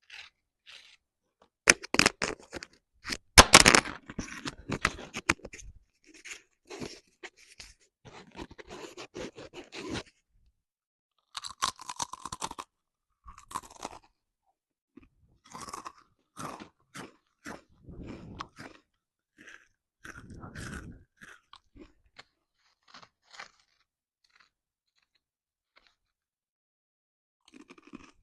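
Close-miked eating of crunchy food: loud crunches from about two to four seconds in, then chewing in short, irregular bursts that grow sparse and stop near the end.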